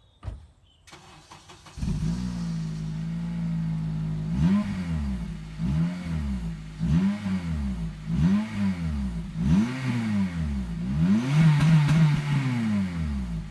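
Honda Civic Type R FN2's 2.0-litre four-cylinder engine through a COBRA resonated sports exhaust: it comes in about two seconds in, settles to a steady idle, then is revved up and dropped back in a quick series of blips, and is held at higher revs near the end.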